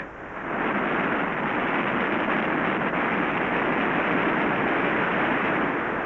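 Floodwater roaring over a dam spillway: a steady, loud rush of falling water that builds over the first half second.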